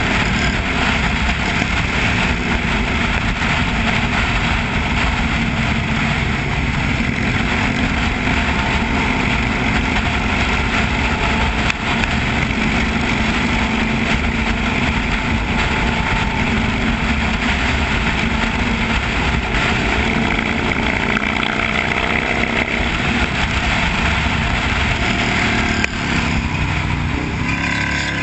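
A vehicle engine running steadily under continuous traffic and road noise.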